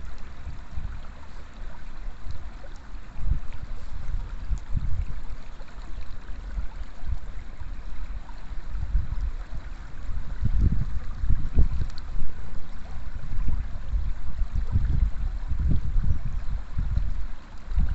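Shallow river water rippling and flowing over the stones at the bank, with irregular gusts of wind buffeting the microphone.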